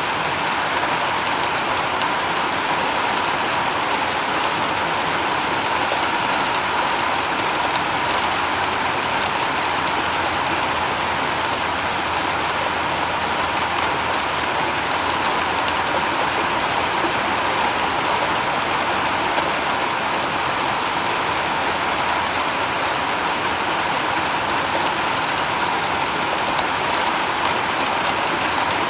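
Steady rain falling on a shingle roof, a dense even patter that neither builds nor eases.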